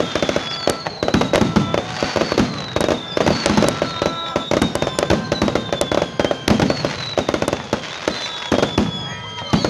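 A New Year fireworks display going off in a dense, continuous barrage of bangs and crackling. A high, falling whistle tone repeats about once a second over it.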